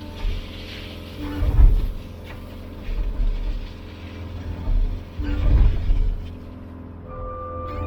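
Cat 299D compact track loader's diesel engine running steadily, with four loud bursts of low rumbling and knocking over it, about a second or more apart, as it works rock.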